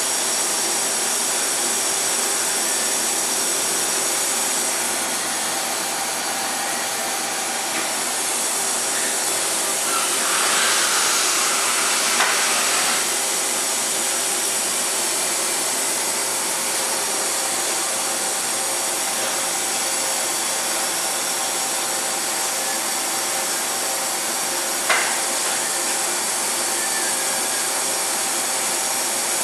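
Spindle of a DMG Mori Seiki DMU 50 five-axis machining center running steadily at 3,800 RPM, a continuous machine whir with hiss. The hiss swells briefly about ten seconds in, and a single sharp click comes late on.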